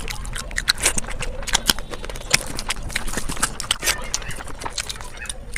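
Close-miked eating sounds: chewing with a dense run of short wet clicks and crunches.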